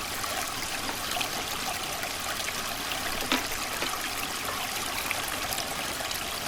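Creek water flowing and trickling steadily, with one short click a little past the middle.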